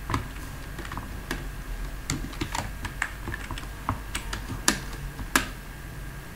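Typing on a computer keyboard: irregular key clicks, with two louder strikes near the end.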